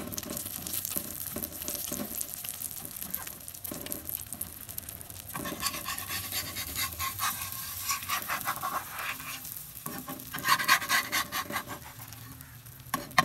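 Egg omelette sizzling in hot ghee on a tawa, with a metal spatula scraping and pushing around its edges against the pan. The scraping comes in short strokes and is loudest about ten seconds in.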